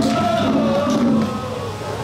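A large crowd of men shouting and chanting together in long, wavering voices.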